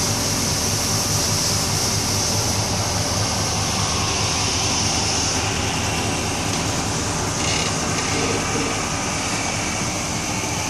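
Supercharged vehicle engine running hard and steadily, a loud even roar with a strong high hiss over it.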